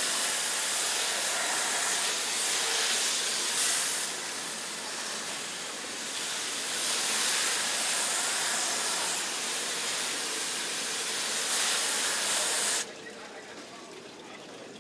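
Water spraying hard from a hose, a steady hiss that cuts off suddenly near the end.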